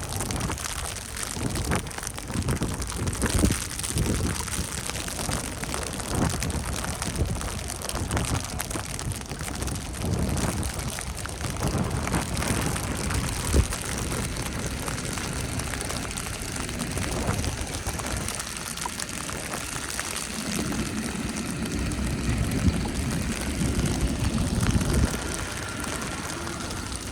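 Steady patter and hiss of wet snow falling, with irregular low thumps and a low rumble about two-thirds of the way through.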